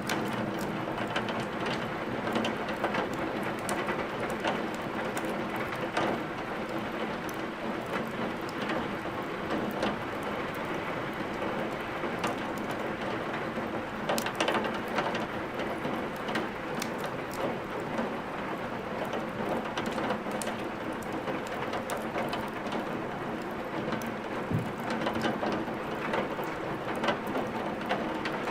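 Steady rain with the irregular crackling and popping of burning wood in a fireplace, sharp pops scattered throughout.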